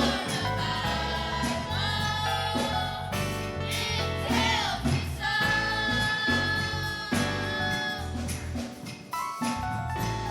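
Live gospel music in a church: singing over a band with bass and drums, with a long high note held through the middle.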